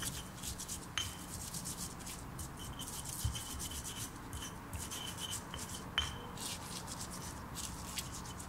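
Stone pestle (ulekan) crushing and grinding raw chilies and garlic with salt and sugar in a stone mortar (cobek): a quick run of scraping strokes of stone on stone, with an occasional sharper knock.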